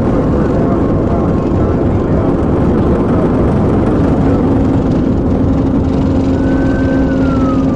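Patrol car driving at about 118 mph, heard inside the cabin: a loud, steady rush of wind, tyre and engine noise, with a steady hum joining about halfway through. Near the end a high tone rises and then glides down.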